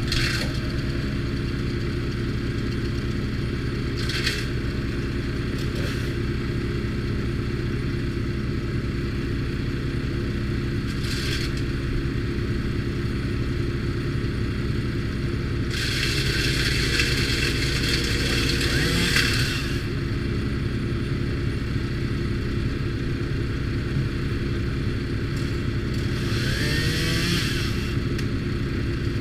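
Timber Wolf TW13/75G wood chipper with its engine running steadily. Over the engine come bursts of harsher noise as material is chipped: short ones at the start, at about 4 and 11 seconds, a longer one of about four seconds midway, and another near the end.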